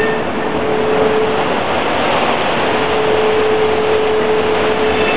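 Train moving through a station: steady loud running noise with a held whining tone that drops out about a second and a half in, then returns.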